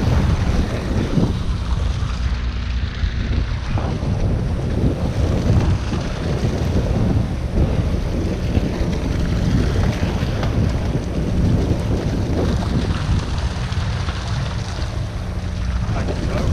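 Wind buffeting the microphone on an open sea, with water washing against a boat's hull. A low steady hum comes in about a second in and again near the end.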